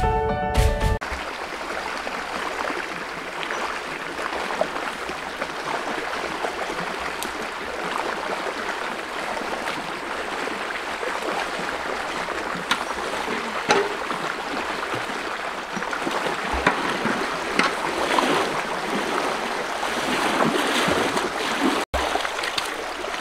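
Shallow river flowing with a steady rush and trickle of water, with a few short splashes from wading in the current. A title-card tune cuts off about a second in.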